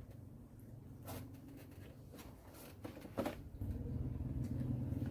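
A few light clicks and knocks of dishes during a meal, then a steady low rumble sets in about three and a half seconds in and continues.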